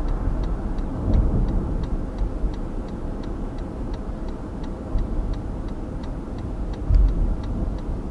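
Car's turn-signal indicator clicking steadily, about three ticks a second, signalling a left turn, over the low rumble of the car driving slowly, heard from inside the cabin.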